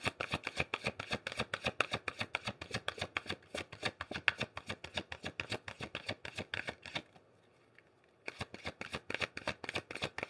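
A tarot deck being hand-shuffled overhand: a fast run of soft card slaps and riffles that stops about seven seconds in and starts again a second later.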